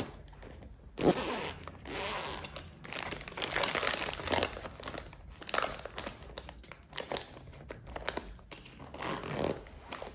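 Toiletries and their plastic packaging crinkling and rustling in irregular bursts as they are pushed and squeezed into a faux-leather toiletry bag.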